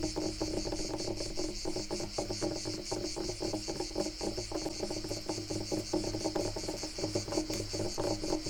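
Rapid scratching strokes on wood, close up, over a steady, pulsing chorus of crickets.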